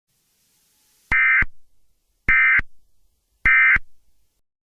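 Emergency Alert System end-of-message signal: three short, identical bursts of SAME digital data tones, about a second apart, marking the close of the alert's audio.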